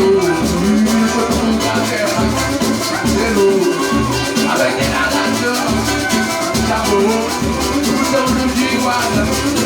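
Samba batucada music: drums and shakers play a steady, fast beat under a wavering melodic line.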